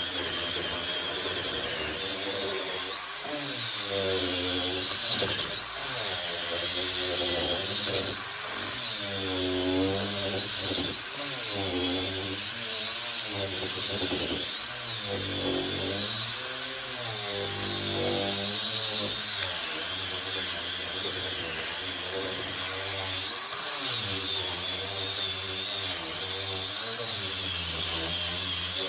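A power tool working wood, running continuously with its motor pitch repeatedly dipping under load and recovering every second or two, over a high whine.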